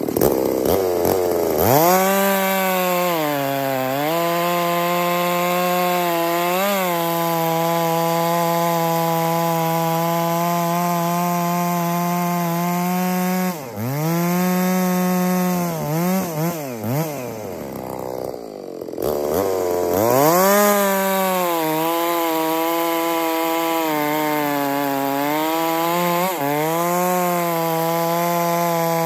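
Ported big-bore two-stroke chainsaw at full throttle, bucking a log. The engine pitch sags as the chain bites and then holds steady in the cut. About halfway the revs drop and flicker a few times with a brief lull, then the saw goes back into the wood and holds steady again.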